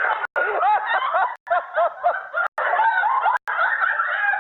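People laughing and snickering. The sound drops out to silence for an instant several times.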